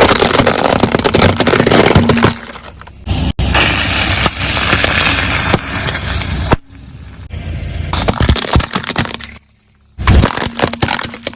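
Objects cracking and crunching as a car's tyre rolls over and crushes them. The sound comes in about four loud bursts with abrupt quieter gaps between them.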